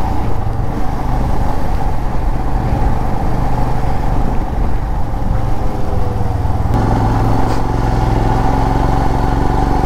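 Motorcycle engine running steadily while riding, with a noisy rush over it; the sound shifts about seven seconds in.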